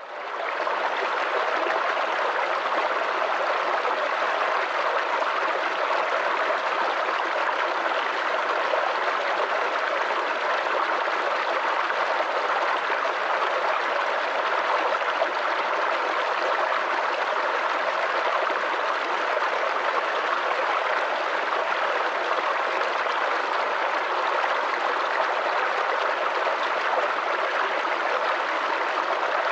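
Stream or river water flowing and splashing steadily, an even rushing sound that fades in over the first second.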